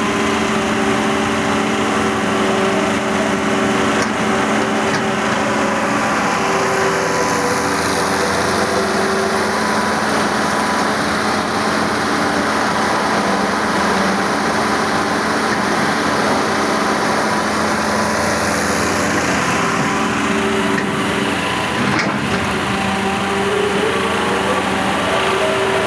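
Hydraulic excavator's diesel engine running steadily under load while the machine is worked, its pitch shifting a little as the hydraulics are operated.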